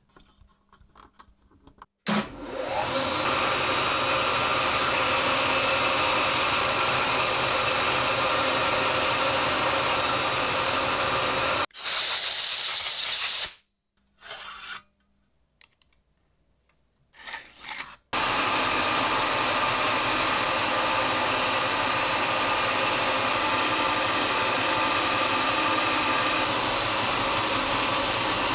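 Manual milling machine running with an end mill cutting a metal plate: a steady, noisy whir with a strong hiss. It starts about two seconds in, turns into a short brighter, hissier burst just before the middle, stops for a few seconds with a couple of small knocks, and then runs on steadily again.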